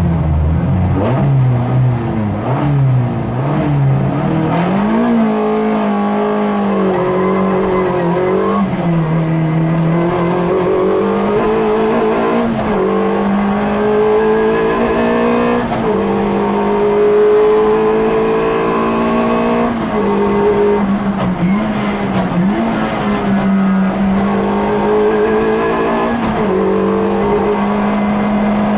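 Peugeot 106 rally car engine heard from inside the cabin, pulling away hard from the stage start and accelerating through the gears. The revs climb and drop sharply again and again at each gear change and lift.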